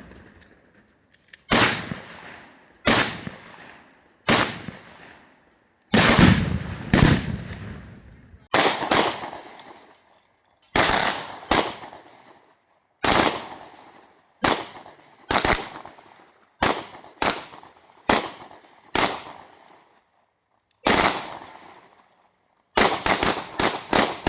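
Firearms shooting at an outdoor range: more than a dozen shots at irregular intervals, each followed by a trailing echo. A quick string of rapid shots starts near the end.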